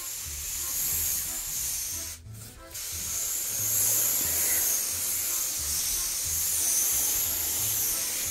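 Sponge rubbing and scrubbing across a ribbed polycarbonate greenhouse wall as it is washed, a steady scratchy rubbing with a brief pause about two seconds in.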